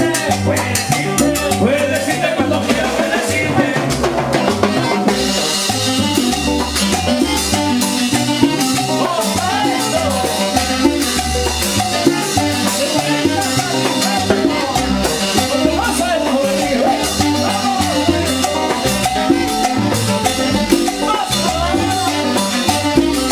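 Live tropical dance band playing, with drum kit and hand percussion over a steady dance beat; the high percussion gets louder about five seconds in.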